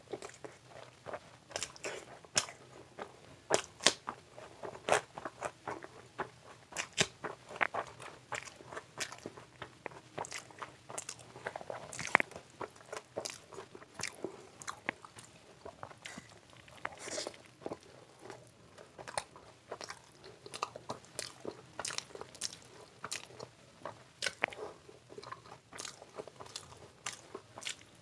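Close-miked chewing and biting of puri (deep-fried Indian flatbread) soaked in curry, eaten by hand: an irregular, steady run of short sharp mouth clicks and smacks.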